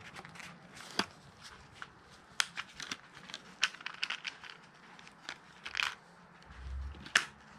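A clear plastic parts bag being handled and opened in gloved hands, crinkling with an irregular run of sharp crackles and clicks.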